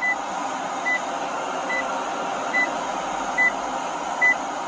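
Short, high electronic beeps repeating a little more than once a second, over the steady running noise of a car cabin.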